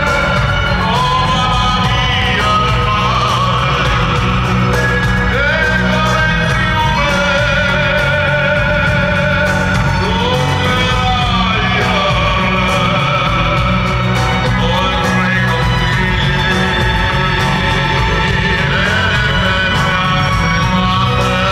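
Live rock band playing through a stadium PA, with a singer holding long, wavering sung notes over the band, recorded on a phone in the stands.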